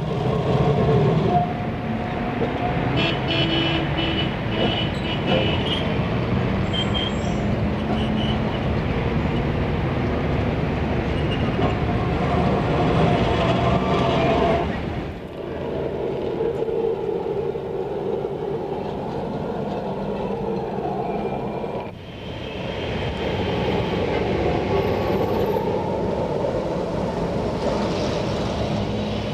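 Busy city street traffic with trams running on rails and horns tooting. The sound dips sharply twice, about halfway through and again later, where the footage is cut.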